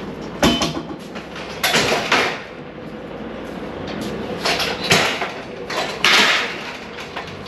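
Several sharp wooden and metal clatters and scrapes inside a truck's curtainsider trailer as a hand pallet truck is handled and a long wooden load-securing board is fitted into the metal side rails. The knocks come in about five separate bursts, the loudest around 5 and 6 seconds in.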